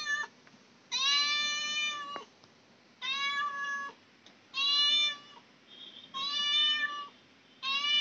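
Domestic cat meowing over and over: about five long meows of about a second each, steady in pitch, with short pauses between them.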